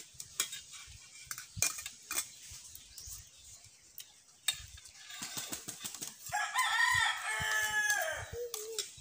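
Metal spoons clicking against plates and a serving bowl, then a rooster crowing once for about two seconds, its call falling in pitch at the end.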